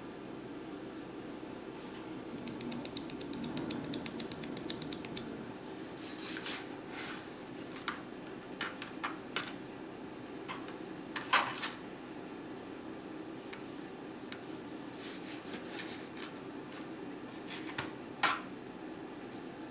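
Kitchen prep sounds: a run of rapid, even mechanical clicking for a couple of seconds, then scattered taps and knocks of utensils and dishes, over a steady low hum.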